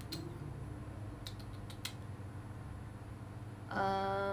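Quiet room with a low steady hum and a few faint clicks in the first two seconds. Near the end a woman starts humming a held note.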